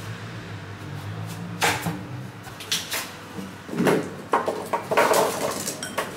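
Chopped vegetables tipped from a stainless steel mixing bowl into a metal roasting tray: a run of clattering knocks and thuds, loudest about four to five seconds in. A low hum fades out in the first two seconds.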